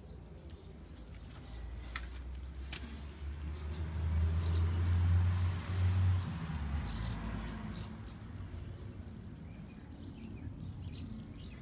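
Outdoor ambience: a low rumble that swells and fades around the middle, with scattered short high chirps and a couple of light clicks.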